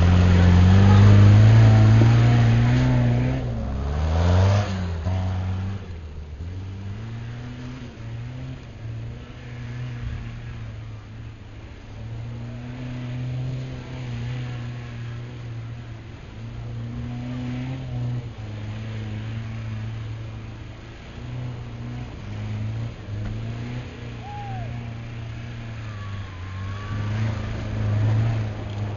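Off-road 4x4's engine revving hard for the first few seconds, then dropping back to low revs and running with small rises and falls in throttle.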